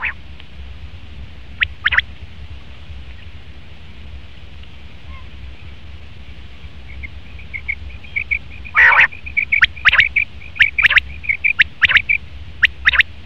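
Male common quail calling: two sharp notes about two seconds in, then from about seven seconds a quickening run of short, high notes broken by loud, sharp calls, over a steady low hum.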